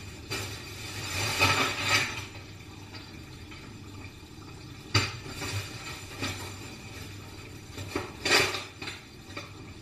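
Dishes and cutlery being handled, clinking and clattering in a few short bouts, with a sharp clink about halfway through. A faint steady low hum runs underneath.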